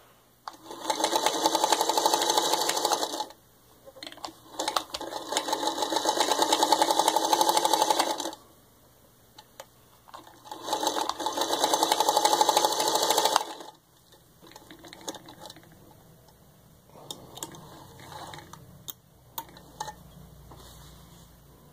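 A 1953 Singer 221-1 Featherweight sewing machine stitching through four layers of denim, in three runs of a few seconds each with short pauses between. After the third run the machine stops, leaving only light clicks and rustling as the fabric is handled.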